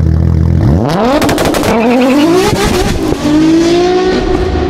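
A car engine revving up hard from a low steady note, accelerating with the pitch climbing, dropping at a gear change about three seconds in and then holding high; a quick run of sharp exhaust cracks and pops comes about a second in.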